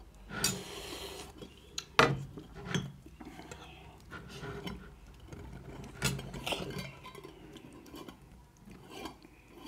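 Stainless steel dinner plates clinking and scraping on a table, with a sharp clank about two seconds in and a few lighter knocks after it.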